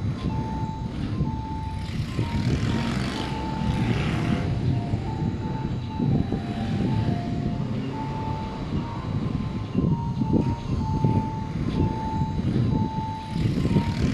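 Level crossing warning bell ringing with a steady repeating electronic ding, about two a second, over the low rumble of an electric train passing through the station.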